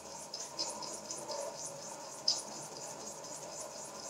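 Two small model steam beam engines running together: a steady rhythm of soft, high hissing exhaust puffs, about three a second, over a fainter steady hum, with one sharper click about two seconds in.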